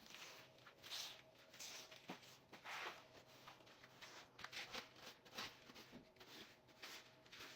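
Faint, irregular rustling and scraping of things being handled and moved about while tidying a room, with a few soft knocks and a low steady hum underneath.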